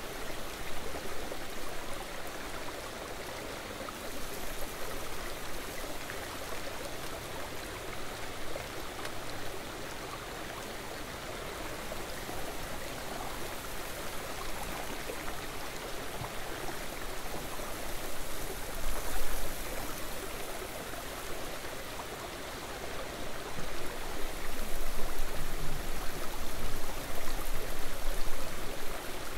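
Steady rush of flowing river water, louder in surges near the end.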